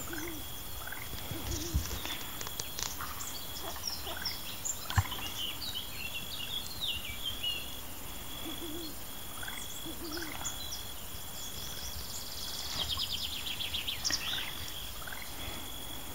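Birds chirping and calling, with many short high calls scattered throughout and a quick trill about thirteen seconds in. A few short low calls come now and then.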